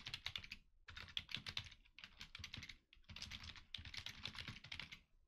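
Typing on a computer keyboard: quick runs of keystrokes in about five bursts with short pauses between them.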